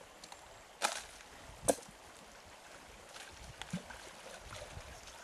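Gold panning in a tub of stream water: water sloshing as the pan is worked, with two sharp splashes about a second apart near the start, the second louder, and a few small knocks later over the faint trickle of a shallow stream.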